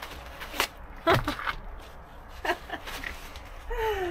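A few short knocks and clicks as things are handled, the loudest about a second in, then a woman's voice sliding down in pitch in a dismayed "oh" near the end.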